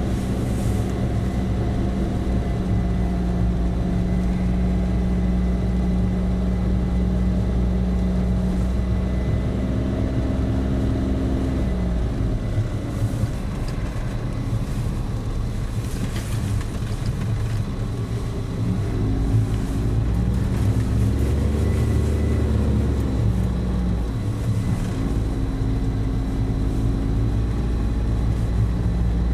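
Car engine and road noise heard from inside the cabin while driving. The engine note steps down about twelve seconds in, then rises and falls several times in the second half.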